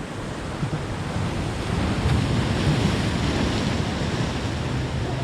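Steady rushing of wind and waves, with wind buffeting the microphone.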